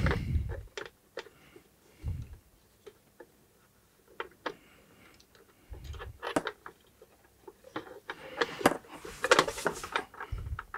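Soldering work on a bench: scattered light clicks and taps from a soldering iron and fine wires being handled against a small metal terminal. A few dull bumps come in between, and a quicker run of clicks near the end.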